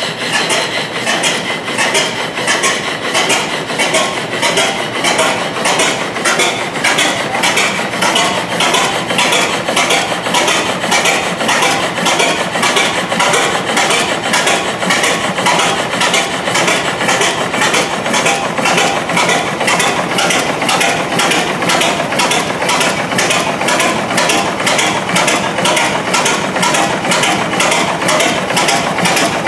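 Patent model of a Snow-style tandem double-acting gas engine running, its valve gear and mechanism giving a steady, even clatter of clicks about three a second.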